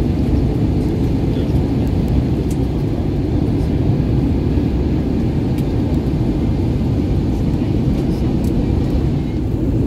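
Steady low rumble inside an airliner cabin on approach: the under-wing turbofan engines and the airflow over the fuselage, heard from a window seat beside the wing.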